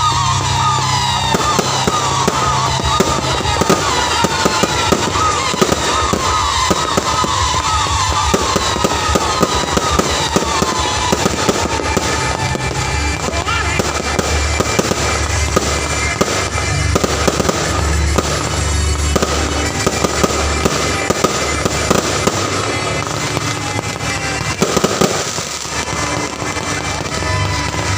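Fireworks display: a dense, continuous run of bangs and crackling, with many whistling tones sliding down in pitch through the first dozen seconds.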